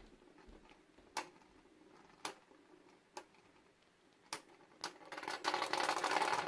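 Two spinning Beyblade tops, CHO-Z Valkyrie and Spryzen, in a plastic stadium: sharp clacks as they hit each other, roughly once a second, over a faint whirr. Near the end comes a dense rattling as the tops scrape and wobble, running out of spin.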